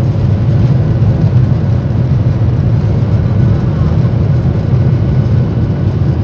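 Boeing 737 airliner on its takeoff roll, heard from inside the cabin: jet engines at takeoff power and wheels rumbling on the runway, a loud, steady deep rumble.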